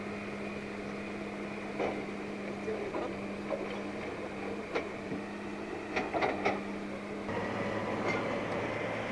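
Excavator engine running steadily, with a few sharp metallic clanks and knocks from the working machine; about seven seconds in the engine note steps up and gets louder.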